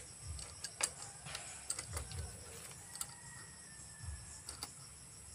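Insects chirring steadily and high-pitched, with scattered light clicks and low thuds over it; the sharpest click comes about a second in.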